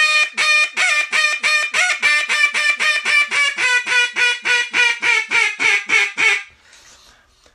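Duck call blown in a hail call (high ball): a long run of short, loud notes, about four a second, that tapers down in pitch until the last note about six seconds in. A few squeals slip in, which a crisp call would not have.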